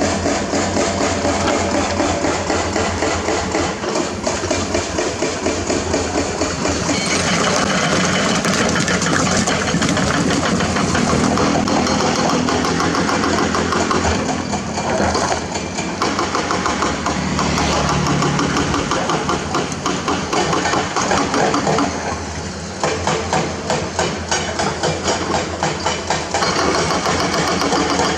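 Excavator-mounted hydraulic breaker hammering hard limestone in rapid, continuous blows, over the excavator's diesel engine running.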